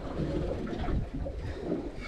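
Steady low rumble of wind and water on an open boat at sea.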